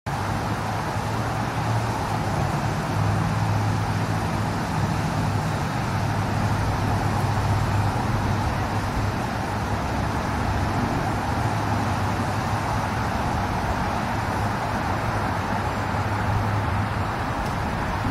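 Hubsan X4 micro quadcopter's propellers buzzing steadily in flight, heard over a continuous outdoor rush with a low hum underneath.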